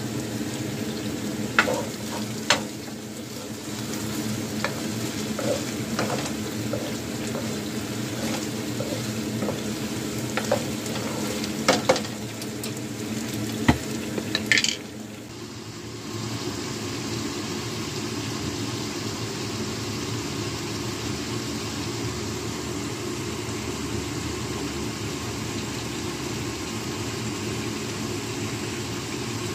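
Chicken wings sizzling in a bubbling honey and chicken-stock sauce in a granite-coated frying pan, with a utensil knocking and scraping against the pan several times during the first half. About halfway the clicks stop and a smooth, even hiss carries on.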